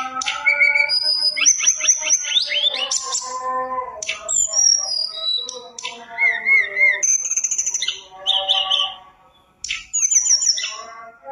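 A caged tledekan gunung songbird singing a long, varied song of clear whistles, sliding notes and rapid trills. It breaks off briefly near the end, then starts again.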